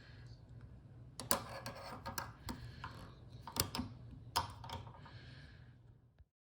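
Several sharp clicks with short scraping sounds between them: small faucet parts being worked with hand tools such as needle-nose pliers. Everything cuts off suddenly near the end.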